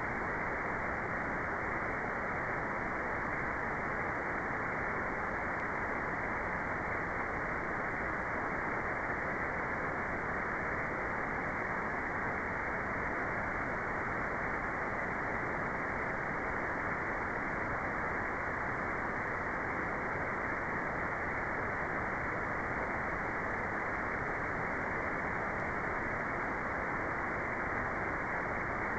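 Steady, unchanging generated white noise, cut off sharply above the mid range so it comes across as an even, muffled hiss.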